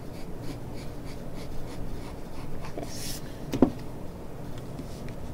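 Graphite pencil scratching lightly across drawing paper in short strokes, with one short knock about three and a half seconds in.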